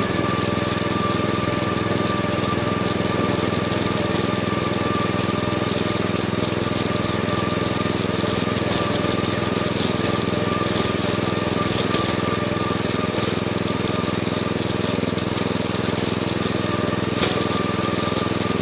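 Engine of a 36-speed riding lawn mower running steadily as it drives across the lawn, heard up close from its hood, with a steady high-pitched whine over the engine note and a single click near the end.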